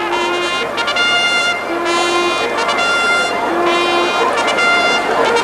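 A military trumpet sounding a ceremonial call for the battalion's war flag: a run of bright notes with several longer held ones.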